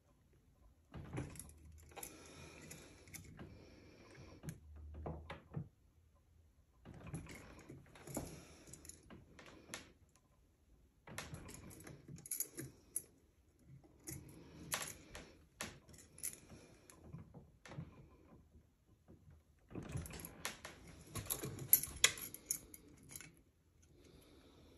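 Heavy-gauge silver curb chain, held in a bench vise, clinking and grinding link against link as it is twisted by hand so the links lie flat. The sound comes in about five bursts of a few seconds each, with short pauses between them.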